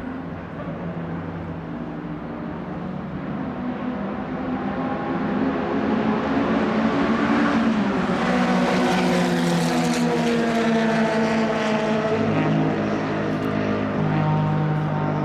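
1960s racing car engine running, its note shifting slowly in pitch; it grows louder about a third of the way in, holds, then eases a little near the end.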